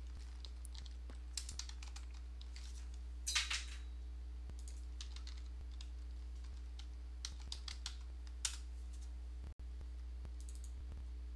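Computer keyboard keys tapped in a few short, scattered clusters of clicks, over a steady low hum.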